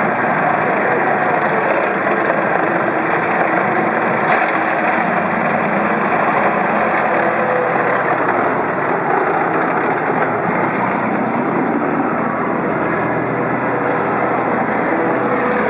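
Engine of a heavy tracked military vehicle running steadily close by.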